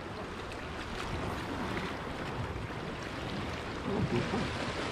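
Steady wash of the sea lapping against shoreline rocks, an even hiss with no distinct splashes.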